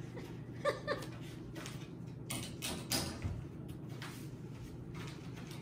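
A few light clicks and knocks of an object being handled, several close together about two and a half to three seconds in, over a steady low hum.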